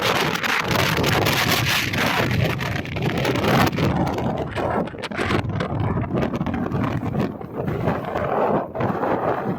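Heavy wind blowing in gusts and buffeting the microphone. The high hiss eases a little about four seconds in.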